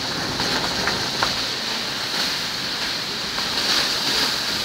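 Steady rushing road and wind noise inside a car driving along a wet road.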